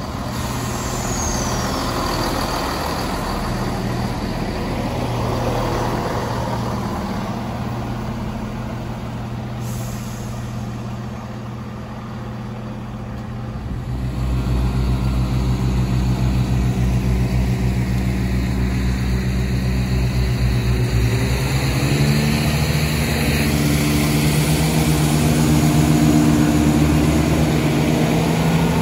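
Diesel multiple-unit trains passing. In the first half one rumbles by on the rails with a faint engine hum. About halfway through the sound turns louder: a steady, deep diesel engine drone with a pitched hum, which rises a little in pitch about three-quarters of the way in.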